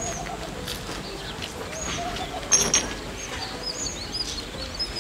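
Small birds chirping outdoors: many short, high chirps throughout, with a louder burst of calls about two and a half seconds in.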